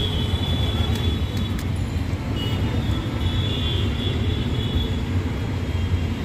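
Steady low rumble of road traffic, with faint high tones coming and going over it.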